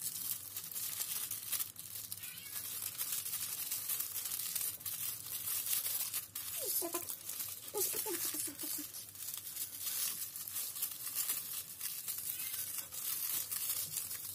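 Plastic roasting sleeve crinkling and rustling with many small crackles as it is twisted into a cord and knotted shut by hand.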